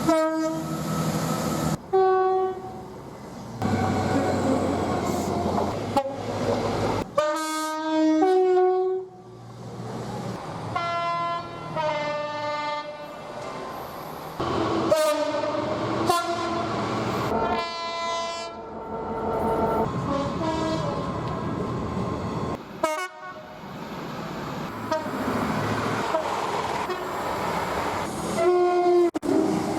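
A string of train horn blasts, many of them two-tone horns stepping between a high and a low note, one clip cut abruptly into the next, with the running noise of trains between the blasts.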